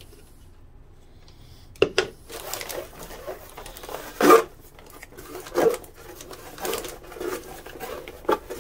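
A chip brush swishing and scraping as it spreads epoxy resin over the inside of a boat hull, in irregular strokes starting about two seconds in, with a few sharper knocks of the brush against the hull, the loudest about four seconds in.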